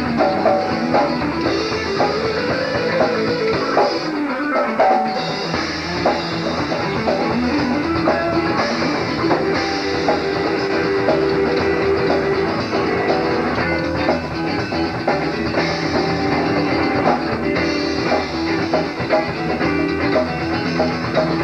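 Southern rock band playing, with guitars over bass and a drum kit. The bass end drops out for about a second around four seconds in.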